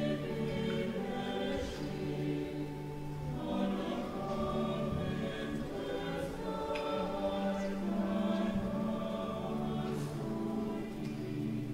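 Choral music: a choir singing a slow piece in long held chords.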